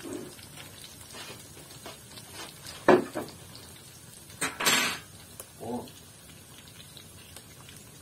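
Metal cookware clanking on a wood stove top as the finished fish is handled. There is one sharp clank about three seconds in and a longer scraping rattle about a second and a half later, over a faint steady hiss.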